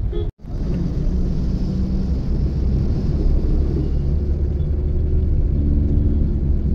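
Steady low rumble of a car driving on a rain-soaked road, heard from inside the cabin, with an even hiss of tyres and water over it. The sound cuts out for a moment just after the start.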